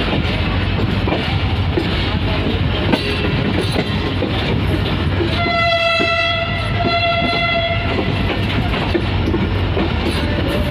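Passenger train running, heard from an open coach door: steady rolling noise with the wheels clattering over the rail joints. About halfway through a diesel locomotive horn sounds two blasts of about a second each on one steady pitch.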